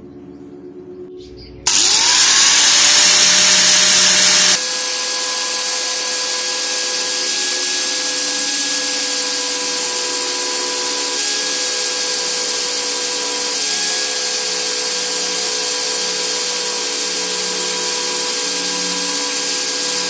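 Angle grinder switched on about two seconds in, its whine rising as it winds up to speed, then running steadily with an abrasive disc grinding the bevel on a thin steel knife blank cut from a saw blade.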